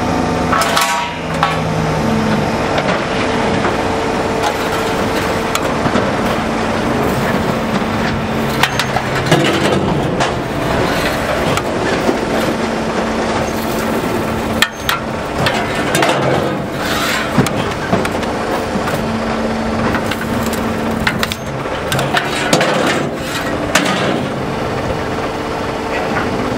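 Kajman 600 alligator scrap shear running with a steady hum while it cuts steel profiles: sharp cracks and clanks every few seconds as the jaw shears the steel, with steel sections clattering as they are handled.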